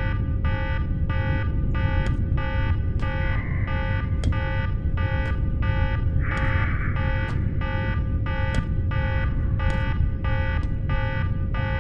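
Electronic alarm beeping rapidly, about four beeps a second, over a steady low rumble, with scattered sharp clicks.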